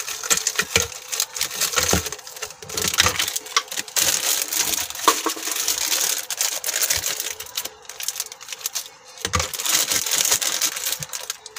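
Plastic bag of ice cubes crinkling as the ice is tipped out, with cubes clinking and rattling into clear plastic cups in a dense run of small clicks and rustles.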